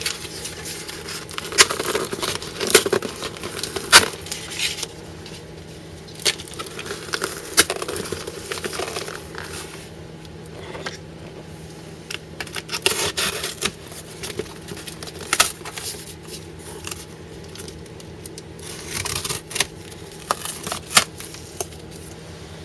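Cardboard packaging being handled and opened: tearing and crinkling with scattered knocks and taps as heavy boxes of bullets are moved about.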